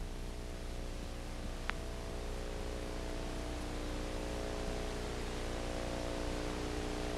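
Steady hiss with a low electrical hum, and a single click about a second and a half in: background noise of an old videotape recording with no programme sound.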